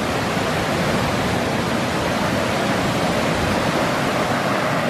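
A small river's water rushing over a low weir, a steady spilling noise.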